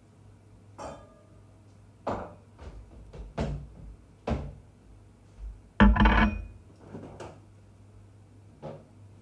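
Plates and tableware knocking and scraping on a stone countertop: a string of short knocks, the loudest a ringing clatter about six seconds in.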